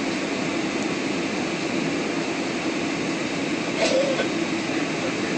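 Steady engine and airflow noise inside an airliner's cabin on approach to land, with one brief sharp sound about four seconds in.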